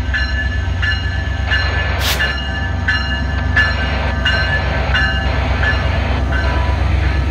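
VIA Rail F40PH diesel locomotive moving slowly past close by: its diesel engine runs with a steady low rumble while its bell rings about once every 0.7 seconds. A short sharp hiss of air comes about two seconds in.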